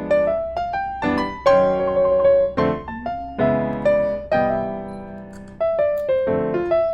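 Background music: a piano melody played over chords.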